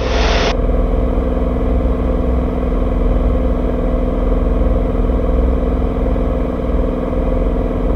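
Cirrus SR22T's turbocharged six-cylinder engine and four-blade propeller running in flight: a steady, even drone. A hiss cuts off about half a second in.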